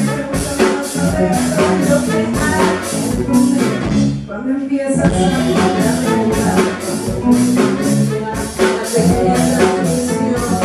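Live soul-folk band playing with a steady beat: a woman singing over electric bass, drum kit and saxophone. The band breaks off briefly about four seconds in, then comes back in.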